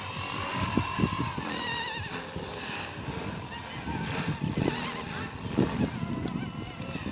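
Blade 230S electric RC helicopter's motor and rotor whine, wavering up and down in pitch as it flies 3D manoeuvres, over wind buffeting the microphone.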